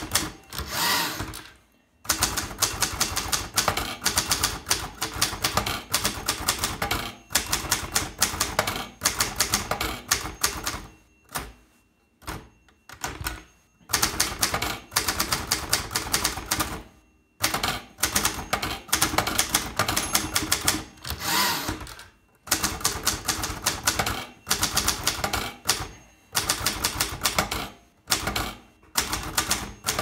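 Zeta manual typewriter being typed on: fast clacking keystrokes of the typebars striking in runs of a second or two, broken by short pauses.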